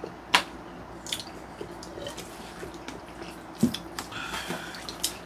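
Eating sounds: soft wet chewing and mouth noises, with a few light clicks of a spoon and chopsticks against plastic takeaway containers. The sharpest click comes about a third of a second in.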